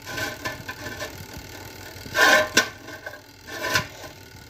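Half-cooked besan sev strands being turned over by hand in a mesh air-fryer basket: soft rustling and scraping, with louder scrapes about two seconds in and again near the end.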